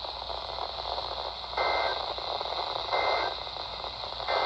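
Three short bursts of Emergency Alert System digital data tones, a little over a second apart, over a steady hiss of weather-radio static. They are the SAME end-of-message code that closes the severe thunderstorm warning.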